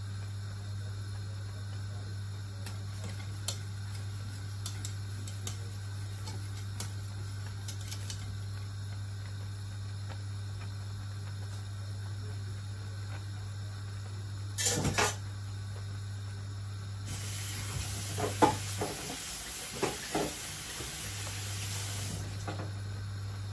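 Maize-flour porridge boiling in a lidded stainless steel pot on a gas hob, over a steady low hum. About two thirds of the way through there is a sharp knock of metal, then about five seconds of hissing with a few more knocks as the porridge foams up under the lid.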